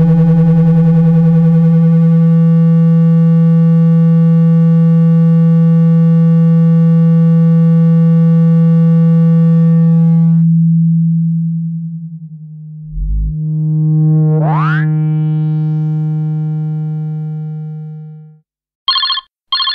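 Synthesized speaker-cleaning tone, a steady low tone played to shake water and dust out of a phone speaker, fading out about twelve seconds in. After a brief low thump it returns with a quick rising sweep and stops about eighteen seconds in, followed by two short high beeps near the end.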